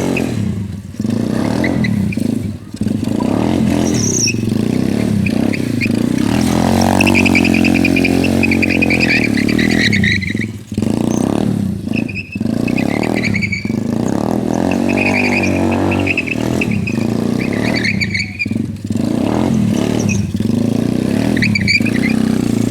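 ATV engine revving up and down repeatedly under hard throttle during drifting, with brief drops as the throttle is closed.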